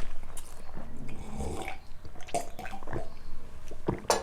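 Someone eating at the table: chewing, with a few light clicks and clinks.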